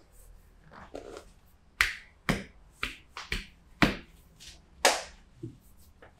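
Percussive massage strokes: a masseuse's hands striking a person's back in a series of about six sharp slaps, roughly half a second apart, with a short pause before the last.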